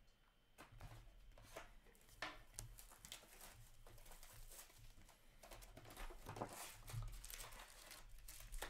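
Faint rustling and sliding of Upper Deck hockey trading cards flipped through by hand, with soft scattered clicks as the cards move over one another.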